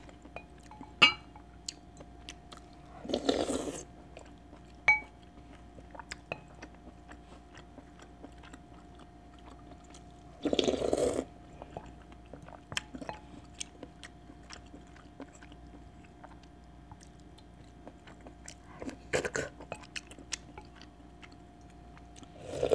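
Close-miked eating of chicken porridge broth: four short slurps from a wooden spoon, spaced several seconds apart, with soft clicks of the spoon scraping a ceramic bowl and chewing in between. A faint steady hum lies underneath.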